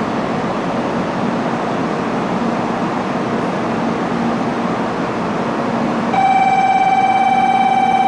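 Steady noisy hum of an N700 series Shinkansen standing at a station platform. About six seconds in, a loud, steady electronic tone starts suddenly and holds: the platform's departure bell signalling that the train is about to leave.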